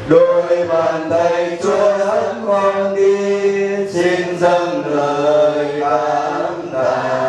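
A group of people singing a Vietnamese Catholic hymn of thanksgiving together, in slow, drawn-out notes that change pitch about once a second.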